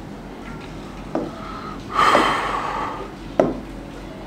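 Two sharp clicks or taps a little over two seconds apart. Between them, about two seconds in, a short breathy rush of noise is the loudest sound. A low steady hum runs underneath.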